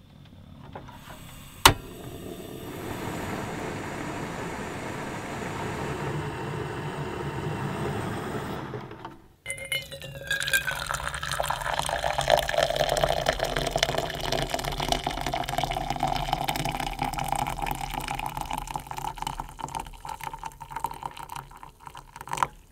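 Water sounds while coffee is made: liquid running and filling, with a sharp click about two seconds in and a brief break about nine seconds in.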